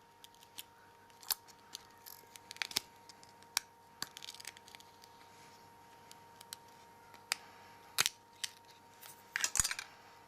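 Double-sided sticky tape crackling and snapping in irregular sharp clicks as a Nokia N8's LCD screen is prised away from its touchscreen digitizer with a plastic knife. The loudest snaps come near the end.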